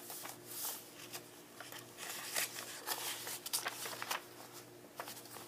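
Paper and card pages of a handmade journal being handled and turned: a string of soft rustles and light taps, over a faint steady hum.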